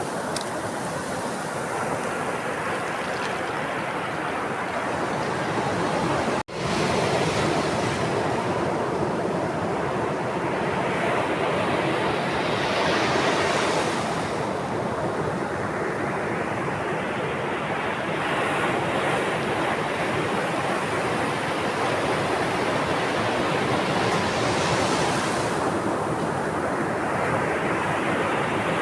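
Sea waves breaking and washing up a shore in a continuous rush of surf. Larger waves swell in about 13 and 25 seconds in. A split-second gap breaks the sound about six and a half seconds in.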